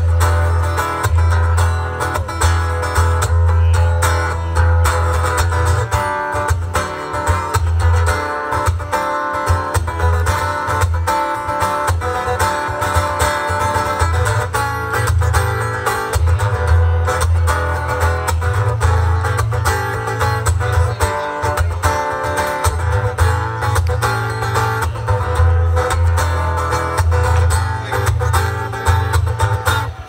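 Amplified acoustic guitar strummed in a steady rhythm, with a heavy low end: an instrumental stretch of a song with no singing.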